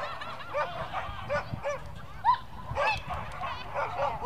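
A dog barking over and over in short, high-pitched yips, several a second.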